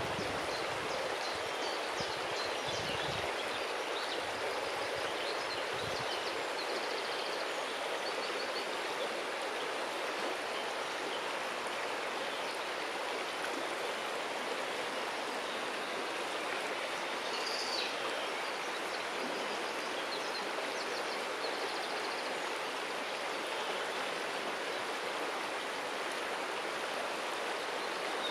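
River water flowing steadily around a stone, an even rushing and babbling.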